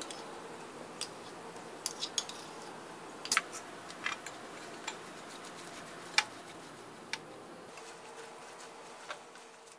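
Scattered light clinks and taps of a spoon and fork against ceramic bowls as mayonnaise is scooped out and stirred into grated vegetables.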